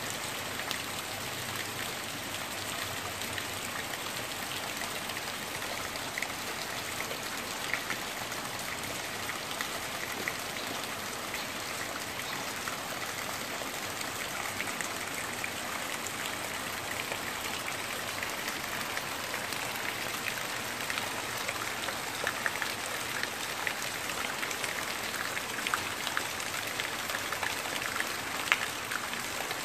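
Steady rain falling on trees, leaves and the ground, with scattered sharp drop hits that come more often in the last several seconds.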